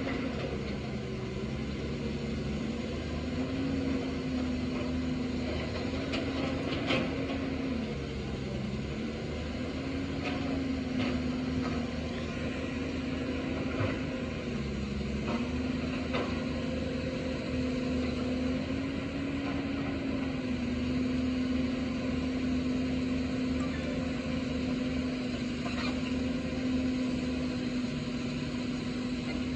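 Caterpillar hydraulic excavator's diesel engine running steadily while digging, its pitch sagging briefly three times as it takes load. A few faint clicks and knocks come through, the sharpest about seven seconds in.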